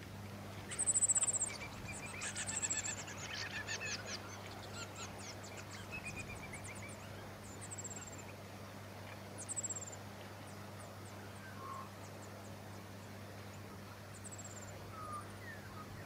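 Small songbirds calling: a burst of thin, very high descending notes about a second in runs into a rapid trill over the next few seconds. After that come scattered short high chirps, with another brief burst a little past halfway. A faint steady low hum sits underneath.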